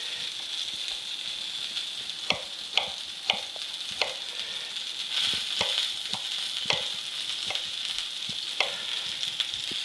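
Flour-dredged cod frying in olive oil in a skillet, a steady sizzle, with about nine irregular knife strikes on a wooden cutting board as radishes are sliced.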